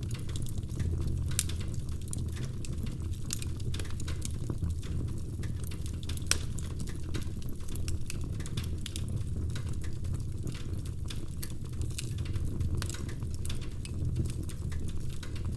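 Wood fire in a fireplace crackling, with frequent irregular pops and snaps over a steady low rumble of the flames.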